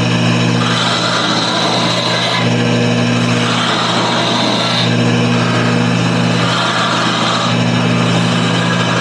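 Wood lathe running steadily while a wooden toy top is turned: a steady motor hum under a hiss from the tool working the spinning wood, which shifts every couple of seconds.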